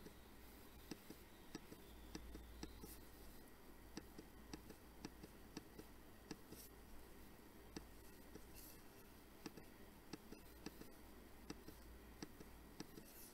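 Faint computer mouse clicks repeating steadily, about two a second, over a low steady hum.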